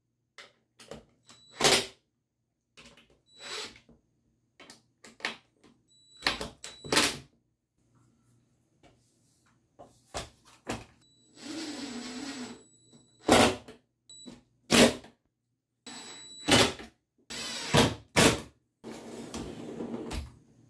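Metal drawer slides and wooden parts of a homemade router duplicator being fitted and worked by hand: a string of sharp clacks and knocks, with two longer rattling slides of the rails, one about twelve seconds in and one near the end.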